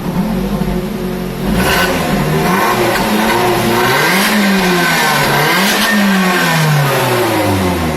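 Lotus Elise Cup 250's supercharged four-cylinder engine on its stock exhaust, heard at the tailpipe: it idles, then is revved up and down several times in quick blips before settling back toward idle near the end.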